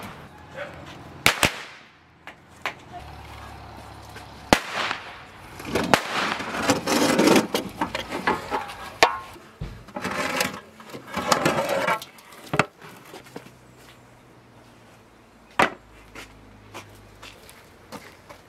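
Firecrackers going off: a run of sharp bangs at irregular intervals, thickest through the middle.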